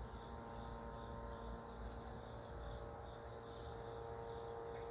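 Insects chirring steadily, over a faint steady hum.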